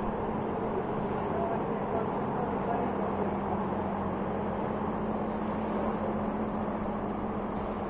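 Packing conveyor's belt and drive motor running with a steady hum and a constant low drone.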